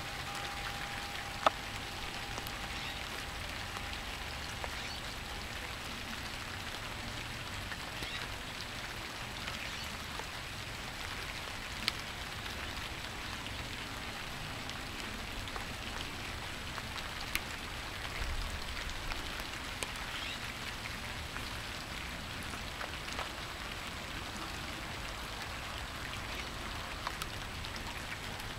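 Steady rain falling, an even hiss of drops on surfaces with a few sharp ticks, the loudest about a second and a half in. A faint steady tone fades out over the first few seconds.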